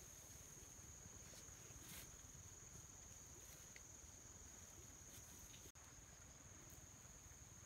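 Near silence with a faint, steady, high-pitched trill of insects, which drops out for an instant about six seconds in.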